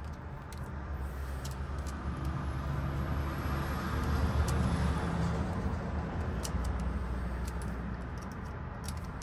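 Low vehicle rumble that swells to a peak about halfway through and then fades, with scattered light clicks from handling the ignition lock cylinder on the bench.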